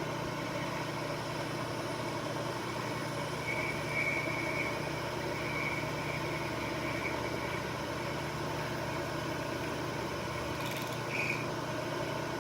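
Milling machine running steadily while its cutter machines an aluminum pen clip. A faint high whine holds for a few seconds in the middle, and a short high chirp comes near the end.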